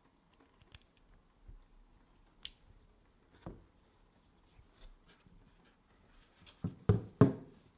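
Parts and tools being handled during hand assembly of a small model nitro engine: scattered light clicks and taps, then a few louder knocks close together near the end.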